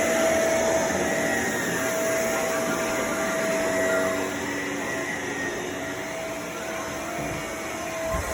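Vacuum cleaner running steadily with a constant whine, a little quieter in the second half and louder again near the end as it moves over the floor.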